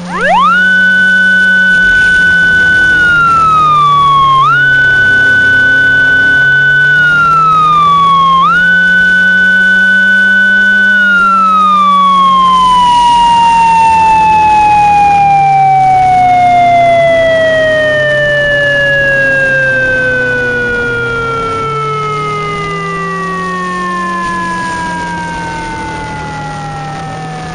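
Synthesized Japanese police motorcycle siren: a single wailing tone rises quickly and holds high, dipping briefly and climbing back twice. After about eleven seconds it slowly winds down in pitch to the end. Under it runs a low, wavering engine hum.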